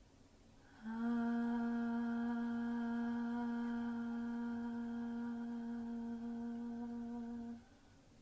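A woman's voice sings one long, steady held note for about seven seconds: sound-healing vocal toning. It starts about a second in and stops cleanly near the end.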